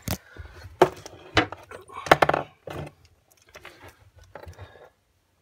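Handling noise: a string of sharp knocks and clatter as a wooden board and the wiring around a junction box are moved about. The knocks come thick in the first three seconds, then thin out to fainter rustles.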